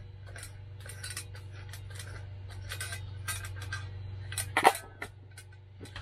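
Metal clicks and scrapes of a single-burner camp stove being screwed onto a 1 lb propane cylinder, with one louder knock about four and a half seconds in, over a steady low hum.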